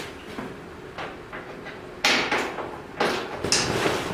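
Metal bodywork clunking and scraping: a car door on a crash-damaged Toyota Corolla Matrix being forced open past its pushed-back front fender. There are a couple of light knocks, then about two seconds in a sudden, loud run of clatter and scraping.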